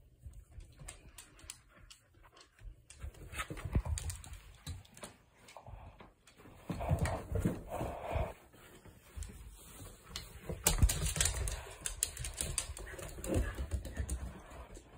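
Two dogs playing on a hardwood floor: claws clicking and scrabbling on the wood, with scuffling and thumps in louder bursts about four, seven and eleven seconds in.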